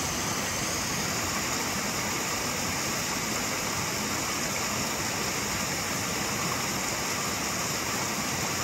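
Small waterfalls pouring between boulders into a rocky river pool: a steady, even rush of falling and splashing water.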